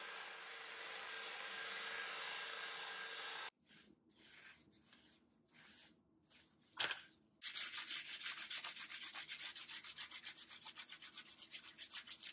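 A hand tool rubbed rapidly back and forth over a steel gib strip, metal on metal, about five or six strokes a second, starting about halfway through after a few softer strokes. It follows a steady hiss that cuts off suddenly about three and a half seconds in.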